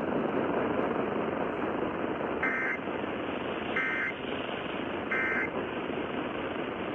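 Emergency Alert System end-of-message data bursts: three short, identical bursts of digital warbling tones about 1.3 seconds apart, marking the end of the relayed weather alert. They sit over steady AM radio hiss.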